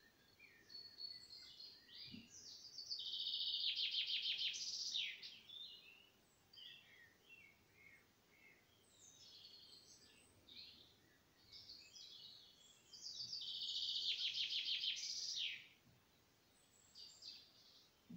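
Eurasian blue tit song: high thin notes running into a fast, even trill, heard twice, with scattered short chirps in between.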